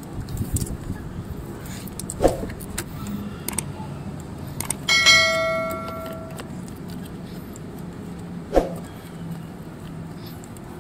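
Pliers clicking and scraping on a metal hose clip and pipework while a power steering hose is worked loose, with a couple of sharper knocks. About five seconds in there is a bright bell-like chime that fades over a second or so.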